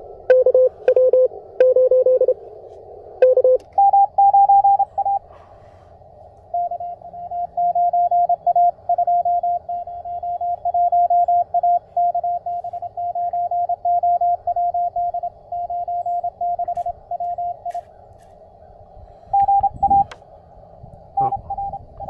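Morse code (CW) signals received by small QRP CW transceivers and played through a portable Bluetooth speaker: on-off keyed tones over a band of receiver hiss shaped by a narrow CW filter. About three and a half seconds in, the tone jumps to a higher pitch and the hiss band narrows as the audio switches from the CFT1 to the QMX receiver.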